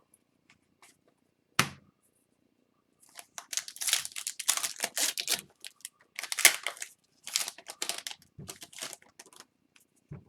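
Foil trading-card pack wrapper being torn and crinkled in a run of noisy bursts, after a single sharp click about a second and a half in; a soft thump near the end.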